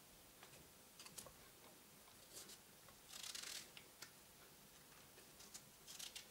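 Near silence with a few faint clicks and a brief rustle about three seconds in: thin zucchini slices being handled and stacked on a wooden board.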